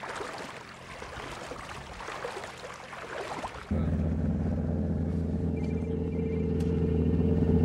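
Water and wind noise as a man wades through shallow water, then, after a cut about four seconds in, a boat's engine running steadily and growing louder, heard from inside the boat. Short repeated phone ringtone beeps sound over the engine about two seconds later.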